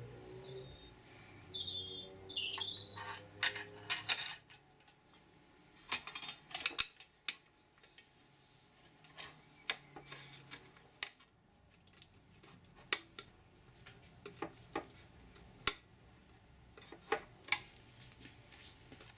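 Clicks and small metallic knocks from handling a 120 W halogen floodlight: a J78 linear halogen bulb is pressed into its end contacts, and the hinged glass front cover is swung shut and fastened. A few short, high squeaks come in the first seconds, and scattered single clicks follow.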